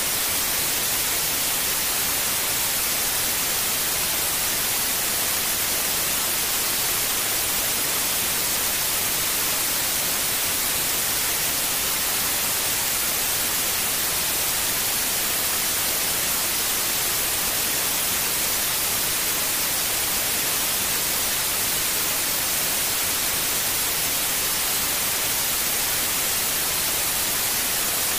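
Steady white noise played as a sleep aid for a baby: an even, bright hiss that does not change.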